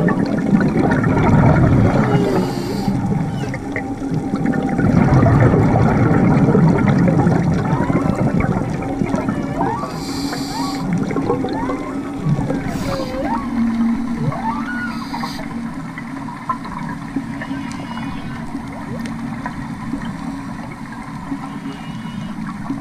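Underwater recording of a scuba diver breathing: exhaled bubbles rumble in two long bursts in the first half, and short hisses of breath come through the regulator later on. Many faint short whistles glide up and down in the background.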